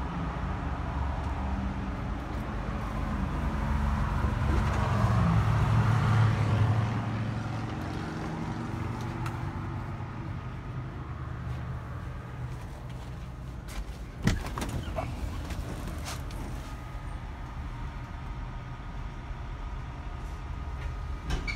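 Low, steady vehicle rumble that swells for a few seconds about five seconds in, then settles. A single sharp click about fourteen seconds in.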